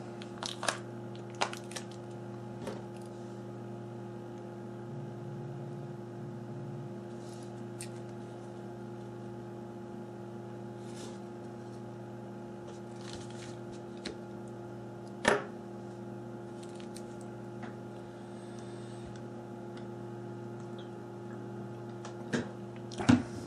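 Scattered small clicks and taps of a phone and its battery being handled and fitted, the loudest a single snap about a third of the way through, over a steady low electrical hum.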